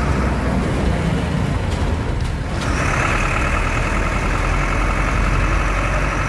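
Bus engine running steadily, heard from inside the bus as it moves slowly through busy traffic. A steady higher-pitched tone joins the low rumble about two and a half seconds in.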